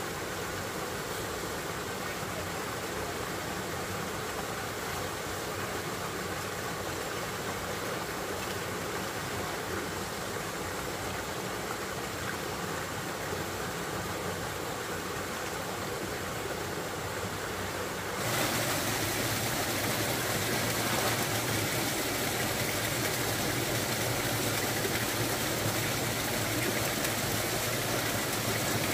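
Steady rushing of a small rocky forest stream and its cascade. About two-thirds of the way through it jumps suddenly louder and brighter.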